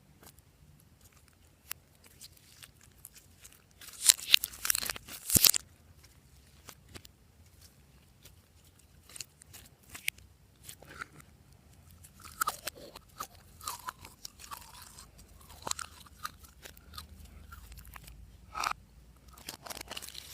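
Glossy slime being kneaded and squished by hand, giving sticky clicks, crackles and pops in irregular bursts; the loudest run of crackling comes about four to five and a half seconds in.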